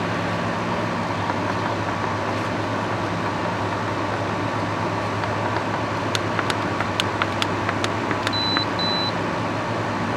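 Frigidaire dehumidifier running steadily, its compressor humming under the fan noise. About six seconds in comes a scatter of light clicks, then two short high beeps from the control panel near the end, with the timer switching itself on and off: a faulty control panel.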